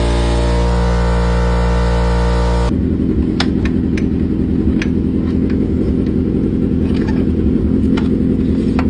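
A vehicle engine running steadily. After a sudden change about three seconds in, it becomes a rougher, uneven engine rumble with a few scattered clicks.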